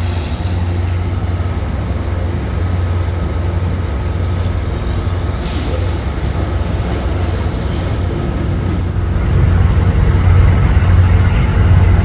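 EMD GP40MC diesel locomotive running with a steady low engine drone. There is a short hiss about five and a half seconds in, and the engine grows louder from about nine and a half seconds in as it is throttled up.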